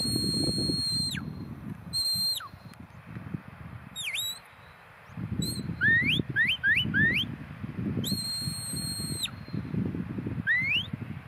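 Sheepdog handler's whistle commands to a working dog on sheep: a long steady high whistle that falls away at the end, a short blast, a dip-and-rise note, then four quick rising whistles, another long steady whistle, and a final rising one near the end.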